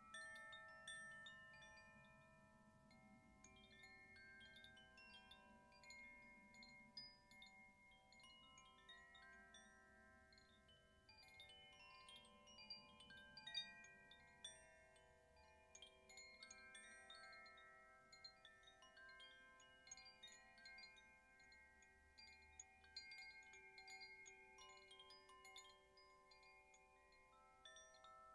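Two hand-held cylindrical wind chimes, one in each hand, swayed gently so their inner rods tinkle and ring on in quiet, overlapping notes.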